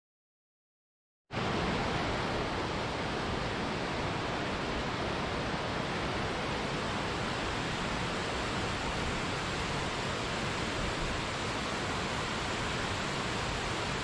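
Mountain waterfalls rushing down rocky cascades, a steady, even roar of falling water that cuts in abruptly after about a second of silence.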